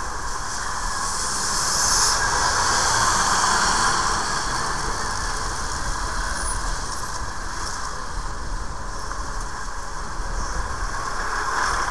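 Motorcycle riding slowly through queued city traffic, heard from the rider's position: a steady hiss of wind and engine noise that swells louder from about one to four seconds in.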